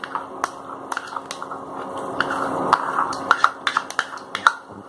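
A metal spatula and spoon clinking, tapping and scraping against a stainless steel kadai and bowl as whisked curd goes into the pan of fried nut paste, with sharp irregular clicks and a brief hiss about two seconds in.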